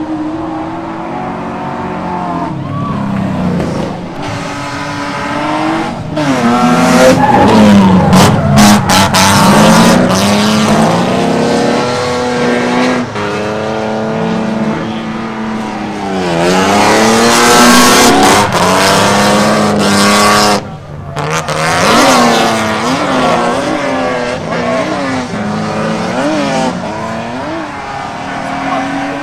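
Two drift cars running in tandem, their engines revving hard with the pitch swinging up and down with the throttle, over tire squeal. The sound is loudest twice as the cars pass, a few seconds in and again just past the middle, and cuts out briefly about two-thirds of the way through.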